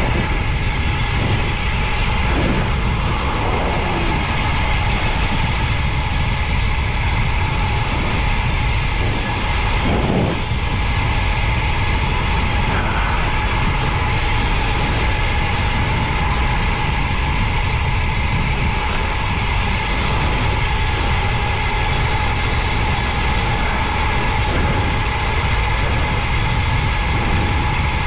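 Wind rushing steadily over the camera microphone of a road bike descending at speed, with a faint steady whine running through it.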